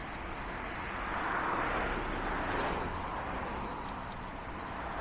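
Road traffic passing: a steady rush of tyres and engines that swells and fades about a second or two in.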